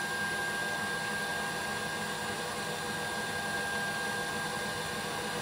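Electric mixer running steadily, beating eggs, vanilla and sugar for custard, with an even motor whine.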